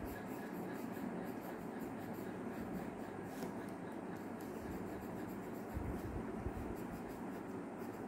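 A coloured pencil scratching back and forth on paper clipped to a clipboard, in steady shading strokes. A few low thumps come about six seconds in.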